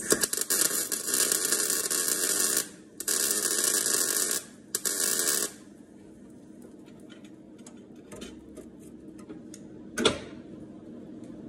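MIG welder crackling as it welds sheet-steel body panel: a run of about two and a half seconds, a short pause, another of about a second and a half, then two short bursts, stopping about halfway through. Faint ticks follow, with one sharp click near the end.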